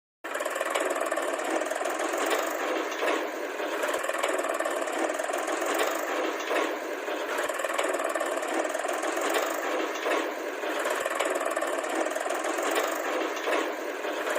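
Toy construction vehicle running steadily with a thin, bass-less mechanical drone and faint rhythmic knocking, starting abruptly.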